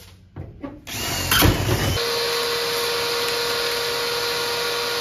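Power drill starting about a second in after a few knocks, then running at a steady speed with an even whine.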